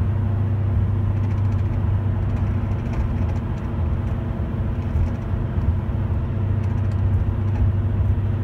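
A worn wheel bearing humming inside a car's cabin at highway speed: a steady low drone with a slight wobble over the tyre and road noise.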